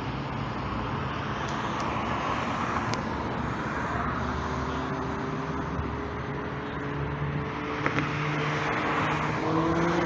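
Road traffic: a steady rushing wash that swells and fades every few seconds as vehicles pass, with an engine hum slowly rising in pitch in the second half.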